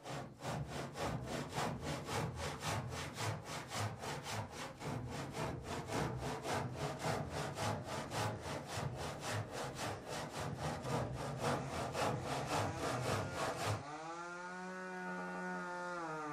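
Japanese hand saw worked back and forth through the seam between two wooden boat planks, fitting the joint, at a quick rhythm of about four strokes a second. The sawing stops abruptly near the end, and a long held voice note comes in, dipping slightly in pitch.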